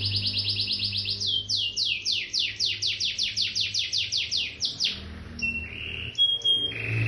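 Domestic canary singing in fast trills of falling notes, about eight a second at first, then slower, wider sweeps, and a few held whistled notes near the end. A steady low hum runs underneath.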